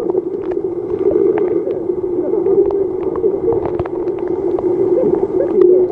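Muffled sound picked up by a camera held underwater in a fish tank: indistinct, wavering voices from above the water and scattered clicks over a steady low drone.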